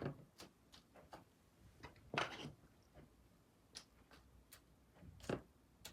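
Scattered light clicks and taps of small objects being handled, with a short rustle about two seconds in and another near the end.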